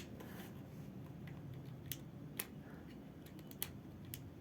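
A few scattered sharp plastic clicks from handling the battery-powered mini chainsaw, with no motor starting: the saw does not respond to this battery.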